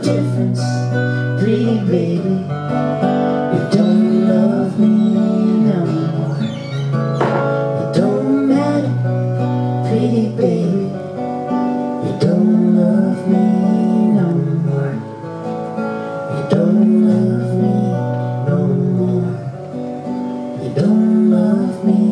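Live band music with guitars playing an instrumental passage: a melody of bent, wavering notes over steady low notes.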